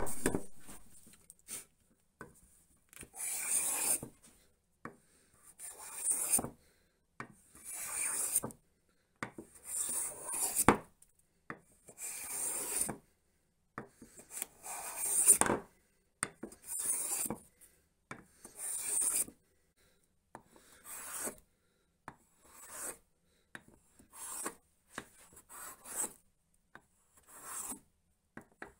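Infill hand plane taking shavings off a hardwood board: a long series of hissing strokes, about one every two seconds, becoming shorter and quicker near the end. A sharp knock opens the sequence.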